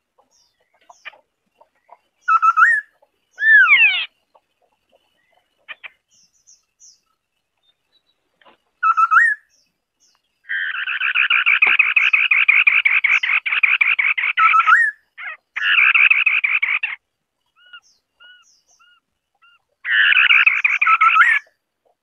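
White-browed scimitar-babbler singing: a few short whistled notes that swoop in pitch, then rapid chattering runs, the longest about four seconds, with soft short notes repeated between the runs.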